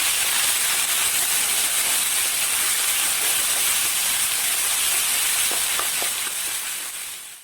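Ginger, green chilli and garlic paste sizzling loudly in hot coconut oil with fenugreek seeds in a pan, a steady hiss that fades near the end, with a few faint taps a little past the middle.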